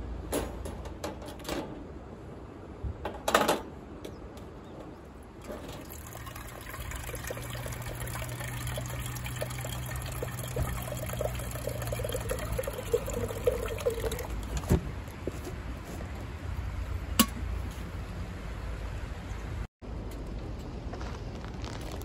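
Water poured from a plastic jug into a small stainless steel kettle, a steady pour from about six seconds in to about fourteen seconds. A few sharp clicks and knocks come before and after it, the loudest about three seconds in.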